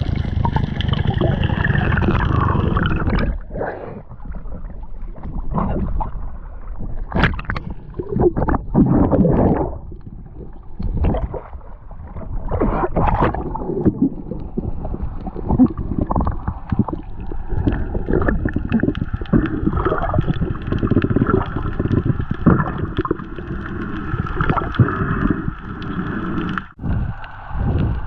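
Water gurgling and sloshing, with irregular knocks and bursts of bubbling, as heard from a camera in or at the surface of the sea.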